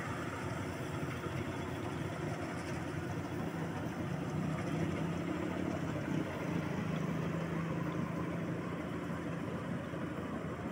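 Rice combine harvester's engine running with a steady drone as the machine works through the paddy.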